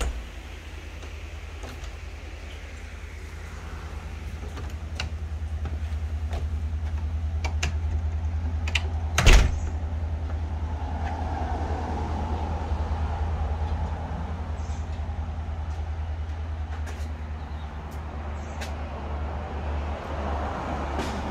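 A door shutting with a loud bang about nine seconds in, over a steady low rumble on the microphone from handling and air movement while walking.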